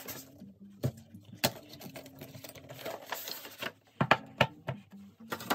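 Cardboard boxes being handled: a sliding rustle and several sharp knocks as a planner's inner box is slid out of its white outer cardboard box and set down on the table.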